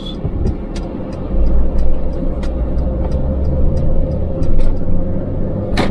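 Semi truck's engine and road noise heard inside the cab while driving on the highway: a steady low rumble that swells about a second and a half in, with a steady hum over it and scattered light clicks and rattles, and a sharper click near the end.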